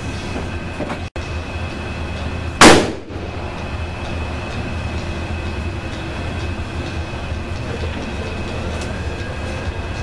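A single loud gunshot from a .460 S&W Magnum about two and a half seconds in, over a steady low rumble.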